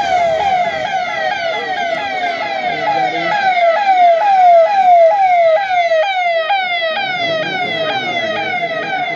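Electronic vehicle siren on a convoy escort SUV sounding a fast, repeating falling tone, about two to three sweeps a second.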